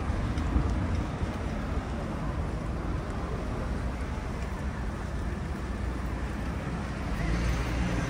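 Steady city traffic noise: a low, continuous rumble of road vehicles, growing a little louder near the end as an engine hum comes in.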